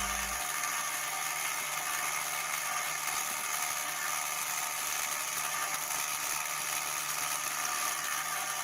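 Lathe running steadily, a whir with a low hum underneath.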